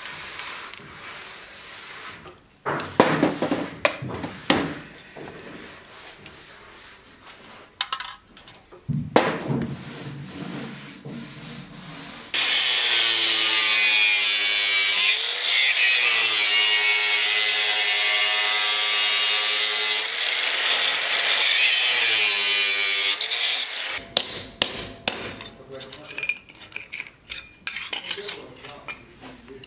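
Angle grinder with a cut-off disc running loud and steady for about twelve seconds mid-way as it cuts sheet steel, its pitch dipping several times as the disc bites. It is preceded by scraping and knocks of the steel being worked by hand in a vise, and followed by sharp hammer taps on an anvil.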